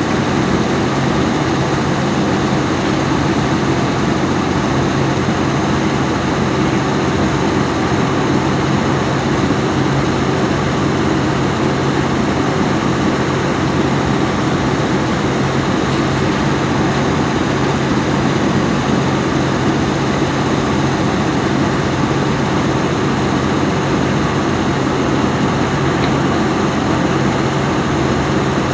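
Heavy diesel engine of a Volvo EC210B excavator running steadily at working speed, with no clear change in pitch or loudness.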